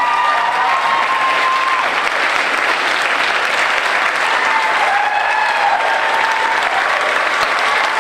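Large audience applauding steadily, with a few long held cheers rising over the clapping.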